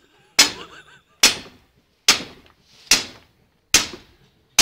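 Hand sledgehammer striking hard ground in a steady run of six heavy blows, about one every 0.85 s, each a sharp crack that dies away quickly.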